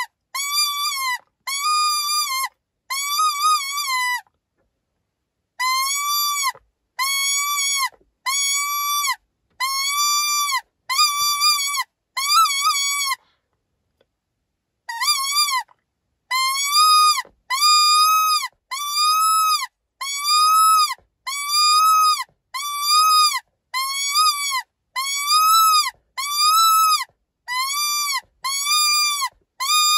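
Animal distress call played to lure coyotes: a string of loud, high, wavering cries, about one a second, each rising then falling in pitch, with two pauses of a second or two.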